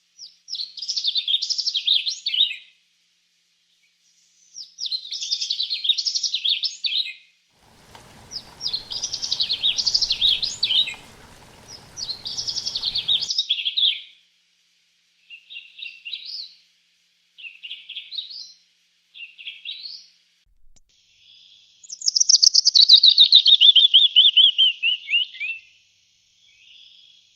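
A songbird singing loud, high chirping phrases about two to three seconds long, separated by short pauses. Shorter chirps follow, and near the end comes a long trill that falls in pitch.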